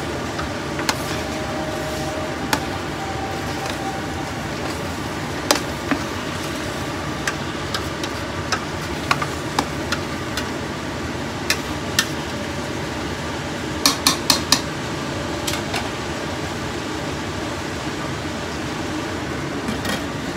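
A cooking spoon scraping and knocking against a stainless steel pot while chopped beef is stirred as it sautés, with scattered clicks and a quick run of four knocks about two-thirds of the way in, over a steady hiss.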